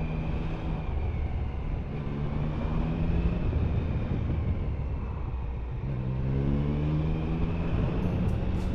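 Car engine and road noise heard from inside the cabin while driving. The engine note rises about six seconds in as the car picks up speed.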